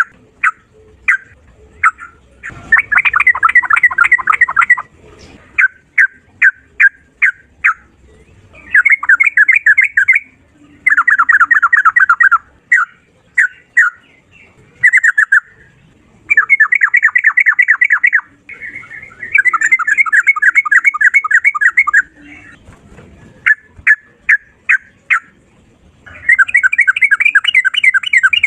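Sooty-headed bulbul (trucukan) singing in long, rapid trilled runs ('ropel'), each about two seconds, six of them. Between the runs come separate sharp chirps.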